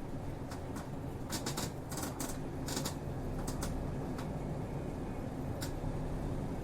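City bus running, heard from inside the cabin: a steady low drone of engine and road noise. Over it comes an irregular run of a dozen or so sharp clicks and rattles in the first four seconds, with one more click near the end.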